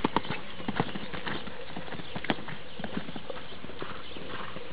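Hoofbeats of a ridden trotter cantering on a sand arena: irregular dull thuds, the sharpest ones in the first couple of seconds.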